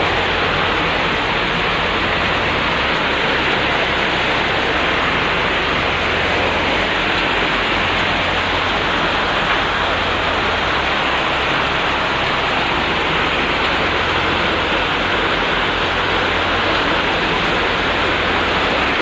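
Heavy typhoon rain pouring down together with fast-flowing floodwater rushing through an alley: a steady, loud rush of water.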